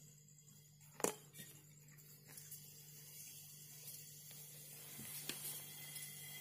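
Freon refrigerant hissing faintly into a refrigerator's sealed system during charging, the hiss building from about two seconds in, over the steady low hum of the running compressor. One sharp click about a second in.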